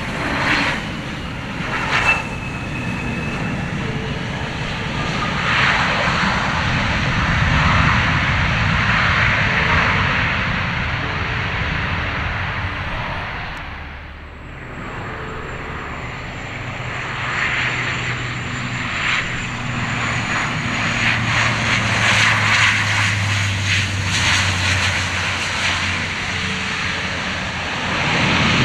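Bombardier CRJ700 regional jet's turbofans running through its landing, a broad jet noise. About halfway through it is replaced by a Bombardier Dash 8 Q400 turboprop approaching, its propeller drone a steady low hum with a thin high whistle above it, growing louder toward the end.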